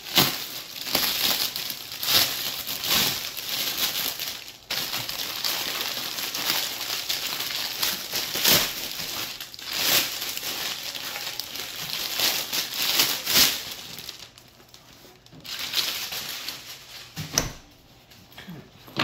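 Clear plastic wrapping crinkling and rustling as it is pulled off a soft fabric rifle case, with many sharp crackles; the rustling dies down about two-thirds of the way through, and a single soft knock follows.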